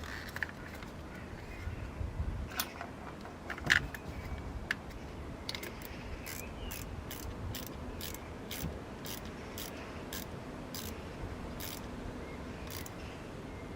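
Ratchet wrench working a bolt: a few knocks of metal on metal, the loudest a little under four seconds in, then a steady run of sharp ratchet clicks, about two a second.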